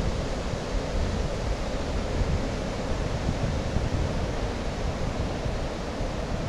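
Steady wash of breaking sea surf, with wind rumbling on the microphone.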